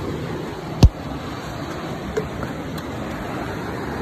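Steady rush of a fast-flowing, rain-swollen river, with a single sharp knock about a second in.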